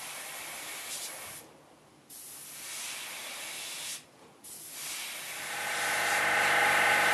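Dual-action airbrush, fed by a compressor, spraying thinned white acrylic paint in three hissing bursts with short pauses between them. About five seconds in, a heat gun starts and its fan motor runs up to a steady whine, louder than the airbrush, to set the paint.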